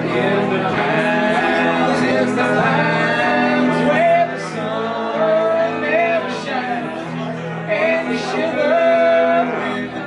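Live country band playing: male vocals sung over electric guitar and upright bass.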